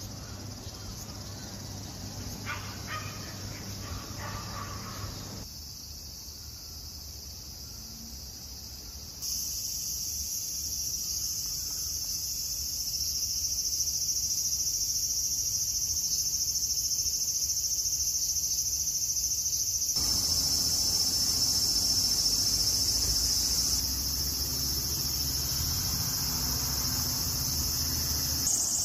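Steady, high-pitched chorus of insects in the trees, growing louder about nine seconds in and changing abruptly a few times.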